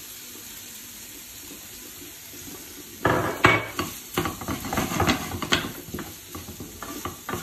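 Sausage, pepper and onion filling sizzling in a frying pan; about three seconds in, a wooden spoon starts stirring it, with a run of irregular scrapes and knocks against the pan.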